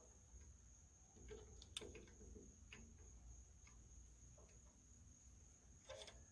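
Near silence with a few faint metallic clicks as a shop-built gib-key puller's screw is turned against the flywheel hub. The clearest click comes about two seconds in and another near the end, over a faint steady high whine.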